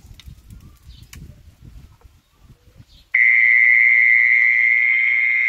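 A few handling knocks and clicks, then about three seconds in a battery-powered horn loudspeaker suddenly starts playing a recorded mole cricket call: a loud, steady, high-pitched call that cuts off abruptly. The call is played to lure mole crickets.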